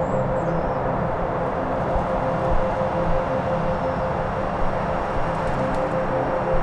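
Droning ambient soundscape: a steady high hum over a rumbling, noisy bed, with low tones that change pitch every second or so.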